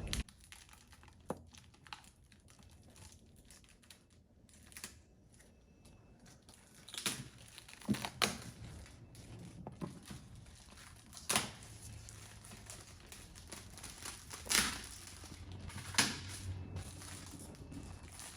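Gift wrapping and packaging being unwrapped by hand: faint paper crinkling and tearing, with several short, sharp rustles scattered through.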